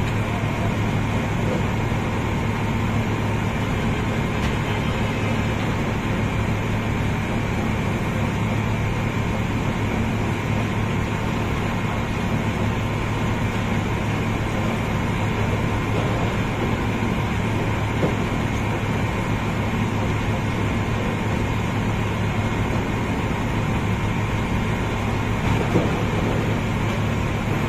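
Machinery of a sand barge running during unloading: a steady mechanical drone and rumble with a constant low hum, unchanging throughout, with a faint knock or two.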